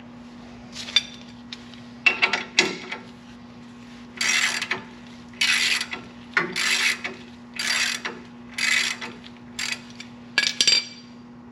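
Rusted, seized brake caliper slide pin being worked back and forth with a tool to free it: a run of about six short metallic scraping strokes in the middle, with a few sharp clicks and knocks before and after.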